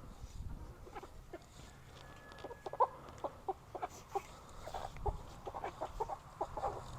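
Silkie chickens clucking: a string of short, irregular clucks, a few a second.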